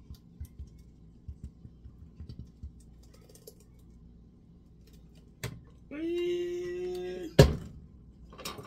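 Light clicks and taps of a plastic blender jar against a metal strainer and pot as blended juice is poured off. About six seconds in, a short pitched hum slides up and then holds for about a second and a half, and it is cut off by a loud thump as the jar is set down hard on the counter or the blender base.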